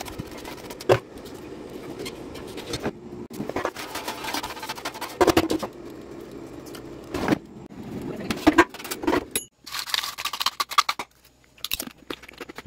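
Crisp sweet potato chips clattering and scraping against a nonstick air fryer basket as they are handled and tipped out, with sharp clicks at irregular moments. A steady low hum runs underneath and cuts off about nine and a half seconds in.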